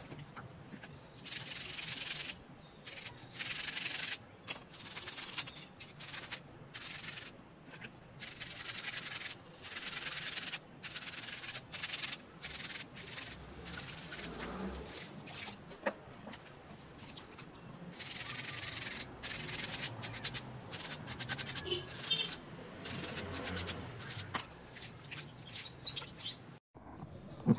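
Hand sanding of a brake part: irregular runs of abrasive rasping strokes, each about half a second to a second and a half long, with short pauses between them.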